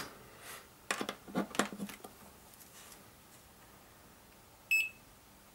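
Several short clicks and knocks as multimeter test-lead plugs are pulled and pushed into the terminals of a resistance reference box. Near the end, the Brymen digital multimeter gives a single short electronic beep, the loudest sound.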